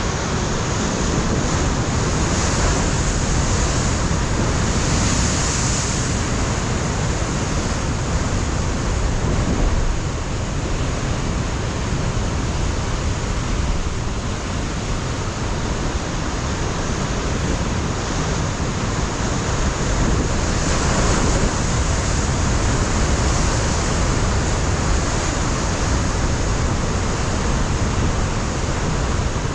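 Ocean surf breaking and washing over a rocky shore as a continuous rush with a low rumble, swelling louder a few seconds in and again about two-thirds of the way through, with wind gusting against the microphone.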